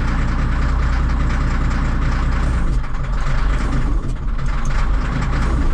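Caterpillar 14G motor grader's diesel engine idling, heard from inside the cab. About three seconds in its steady note breaks up and shifts as the hydraulic pump is brought in by letting off the neutralizer pedal.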